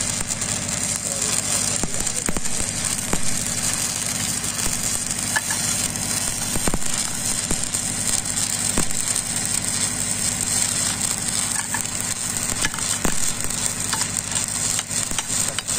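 Stick-welding arc of a 6010 electrode running the root pass on a steel pipe joint: a steady crackling sizzle with scattered sharp pops, over a steady low hum.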